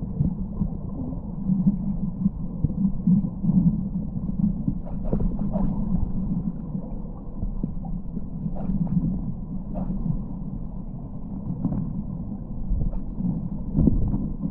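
Muffled underwater sound of a river: a steady low rumble of moving water with a few faint clicks scattered through it.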